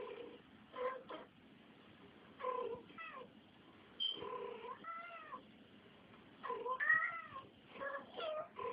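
Cats meowing in a quick, chatty run of about eight short calls that rise and fall in pitch, with brief pauses between them.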